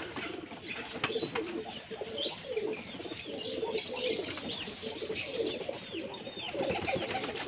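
A flock of domestic pigeons cooing, many low, gliding coos overlapping all the way through, with a few thin, higher chirps mixed in.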